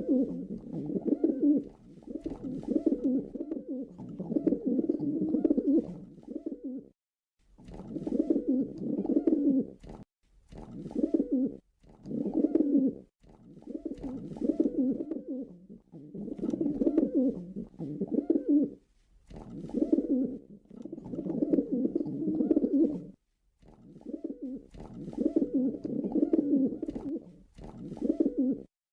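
Pigeon cooing over and over, low rolling coos in phrases of one to three seconds with short pauses between them.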